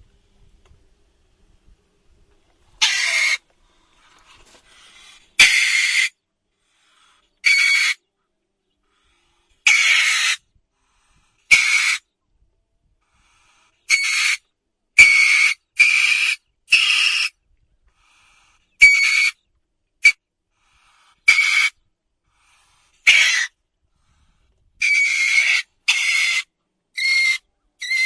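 River otter screaming: about sixteen short, shrill screams, each under a second, repeated at irregular intervals.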